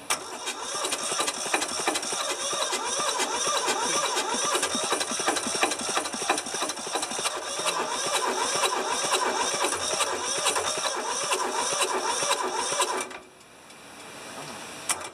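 Toyosha two-cylinder diesel engine being cranked by its starter and trying to fire, with a fast run of regular knocks for about thirteen seconds. It has one cylinder with weak compression and a sticking, rusty intake valve, and is not yet running on diesel. The cranking cuts off suddenly about thirteen seconds in.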